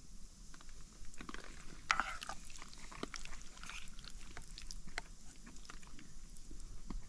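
A person eating pasta from a bowl: chewing, with scattered light, irregular clicks and taps.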